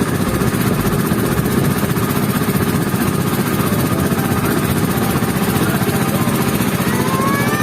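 A small motorboat's engine running steadily with a fast, even chugging. A brief rising tone sounds near the end.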